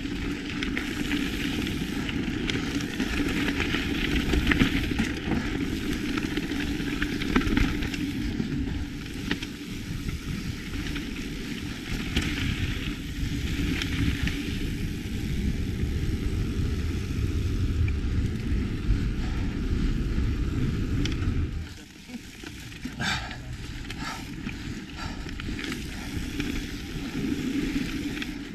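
Lapierre Zesty mountain bike riding a dirt trail: tyres hissing over dirt and gravel, with wind rumbling on the action camera's microphone. About 22 s in the wind rumble drops away, and a few sharp knocks and rattles from the bike stand out.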